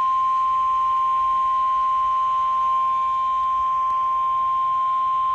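NOAA Weather Radio 1050 Hz warning alarm tone: one steady, unbroken tone. It announces a warning broadcast, here a tornado warning.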